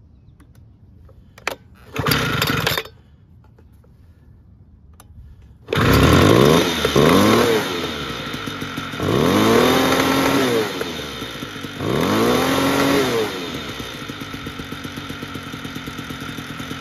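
Homelite Vac Attack II leaf blower's small two-stroke engine being pull-started: a short burst about two seconds in, then it catches and runs, revved up and back down three times before settling to a steady idle. An old, untuned blower that still starts and runs.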